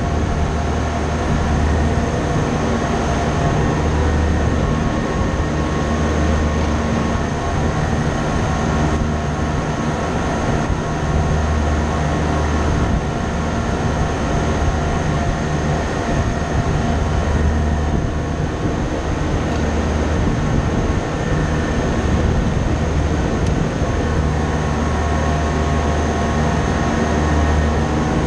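Steady, loud drone of running machinery, with several steady tones over a deep rumble that swells and fades every few seconds.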